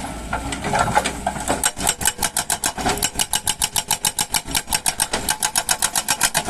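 Rapid, even mechanical clatter of about eight to nine knocks a second, starting about a second and a half in after a few irregular clanks.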